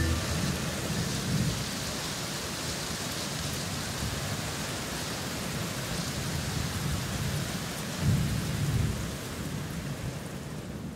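Steady rain hissing, with a low roll of thunder at the start and another about eight seconds in. The rain fades out near the end.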